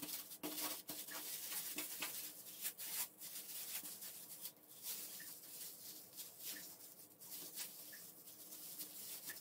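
Thin plastic freezer bag rustling and crinkling faintly in irregular short bursts as its neck is twisted and knotted shut by hand.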